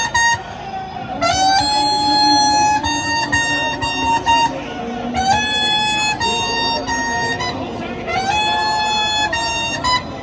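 A loud, nasal wind instrument playing long held notes, each sliding up into pitch at its start, one every three to four seconds, with short repeated notes near the end: music of a mourning procession.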